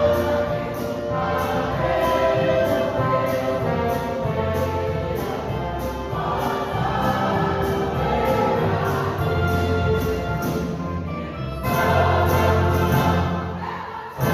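Choir singing with an orchestra accompanying, sustained chords; the ensemble swells louder again about three-quarters of the way through, then fades near the end.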